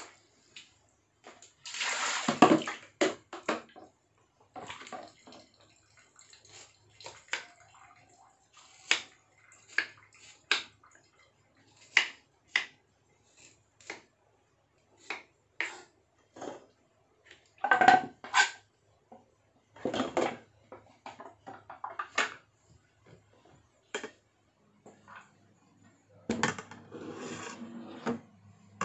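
Kitchen knife slicing a root on a wooden cutting board: irregular sharp taps of the blade on the board. There are a few louder bursts of rustling and handling about two seconds in, around the middle and near the end.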